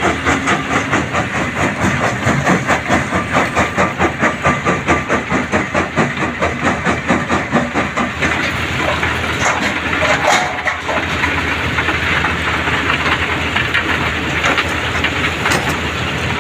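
Mobile crusher and Kobelco excavator running together while stone is fed to the crusher: a loud mechanical din that pulses about four to five times a second for the first eight seconds or so, then evens out into a steady rumble. A short rattle comes about ten seconds in.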